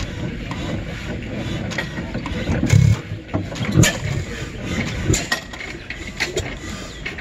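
Antique stationary gas engine running slowly: a low rumble with mechanical clicking, and a few heavy thumps about a second apart near the middle.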